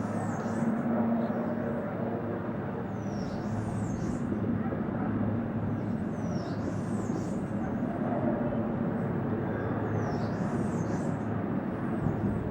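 Steady engine drone from a motor or machine running, with a high, falling chirp repeating about every three seconds over it.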